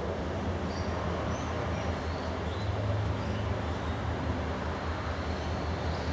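Distant diesel locomotive running light engine, its engine giving a steady low hum as it approaches slowly.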